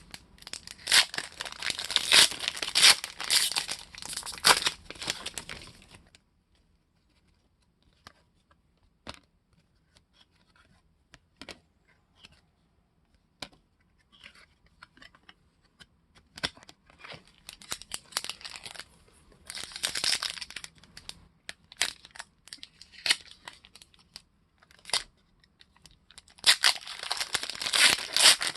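Trading-card pack wrappers being torn open and crinkled, in dense crackly bursts at the start, again past the middle, and near the end. In between there is a quieter stretch of scattered soft clicks.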